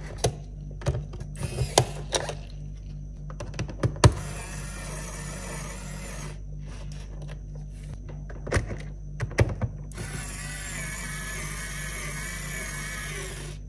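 Small handheld electric screwdriver with an N20 gear motor, worked in short spells. There are sharp clicks and taps, a brief whirr about four seconds in, and a longer wavering whirr from about ten seconds in to near the end.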